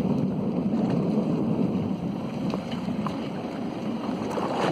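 Steady noise of wind buffeting the microphone over open sea, aboard a fishing boat.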